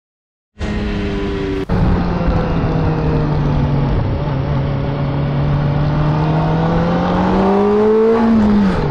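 Sport motorcycle engines heard from the rider's camera. After a brief silence, one bike runs for about a second. Then a second bike cruises with wind noise, its engine note sagging slightly, rising near the end, then falling sharply as the engine slows.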